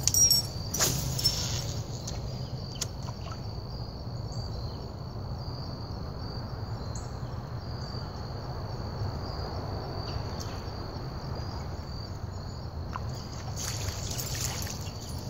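Crickets trilling steadily in one high continuous tone, over a low steady outdoor rumble. A few light clicks come in the first second or so.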